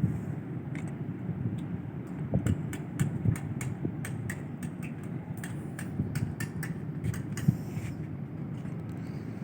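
Small fishing boat's motor running under way, a steady low rumble, with scattered sharp clicks and taps over it.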